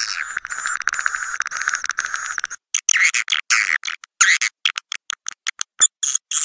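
Edible-nest swiftlet calls: dense, rapid twittering and clicking that breaks after about two and a half seconds into short bursts of chirps with brief silent gaps. This is a swiftlet lure track, played to call swiftlets in to roost.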